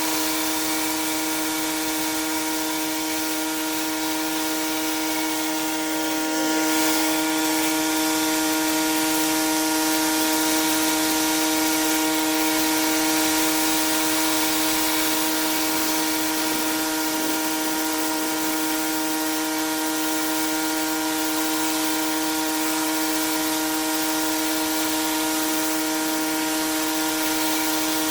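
Pressure washer running steadily, a constant whine from the machine under the hiss of its high-pressure water spray, which gets a little louder about six seconds in.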